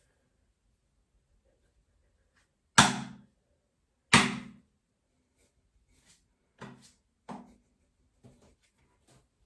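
A man burping loudly twice, about a second and a half apart, each burp sharp at the start and dying away over about half a second. A few shorter, softer sounds follow.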